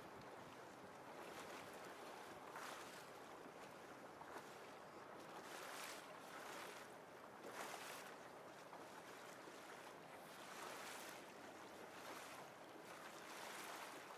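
Faint, steady rush of water and wind heard from a boat under way, swelling louder several times.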